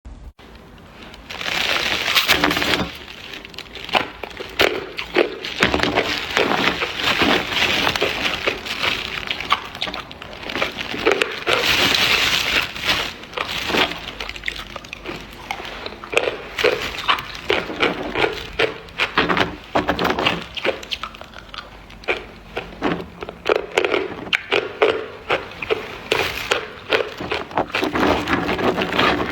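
Ice being bitten and chewed close to the microphone: a dense run of loud, sharp crunches and cracks, going on almost without a break.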